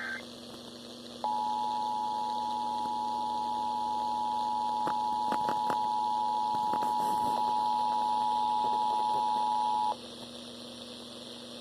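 Emergency Alert System attention signal over FM radio: a steady two-tone alarm that starts about a second in and cuts off suddenly after about eight and a half seconds. The tail of the digital SAME header burst ends right at the start, and a low hum runs underneath.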